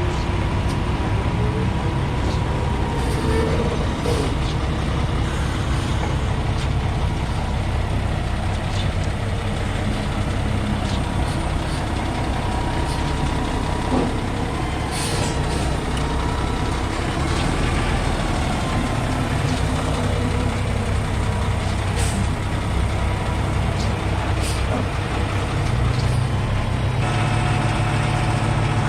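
Concrete pump truck's diesel engine running steadily as the heavy truck is driven to reposition it.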